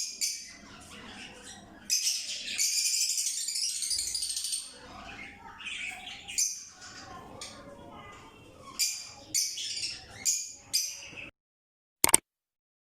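Small pet parrots in an aviary (lovebirds, cockatiels and ringnecks) chattering, chirping and squawking. There is a loud burst of overlapping shrill calls about two seconds in and a run of short squawks later. The sound cuts off near the end.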